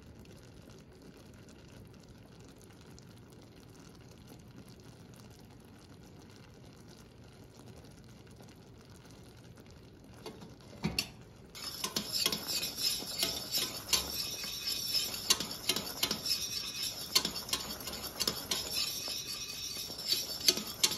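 Caramel boiling quietly in a stainless steel pot. About halfway through, a utensil starts stirring it, scraping and clicking fast and steadily against the pot over the bubbling.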